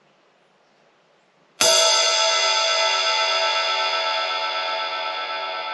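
Paiste Alpha 20-inch Power Ride cymbal struck once about a second and a half in, then left to ring, its many overtones fading slowly.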